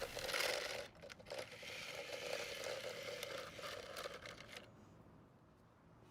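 Small plastic toy car being pushed backwards and handled on a surface, a faint rolling and rattling with small clicks that stops about four and a half seconds in.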